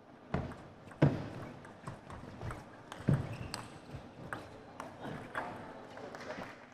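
Table tennis doubles rally: the ball clicking off rubber bats and bouncing on the table in a quick, irregular run of sharp knocks. The two loudest hits, about a second in and about three seconds in, carry a heavier thud beneath.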